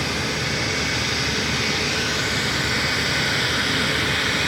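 Embraer E195-E2 jet airliner's Pratt & Whitney geared turbofan engines running, a steady rush of noise with a faint high whine coming in about halfway.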